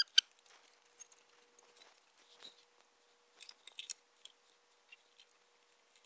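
Small screwdriver backing screws out of a sheet-metal control box: scattered light clicks and scrapes of the tool, screws and fingers on the metal, in short clusters.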